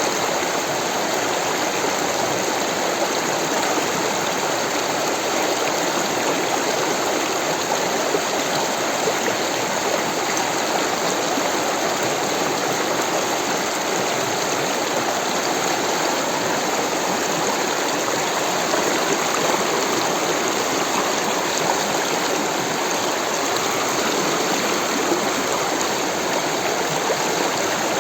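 Rushing water of a stream, a steady, unbroken flow.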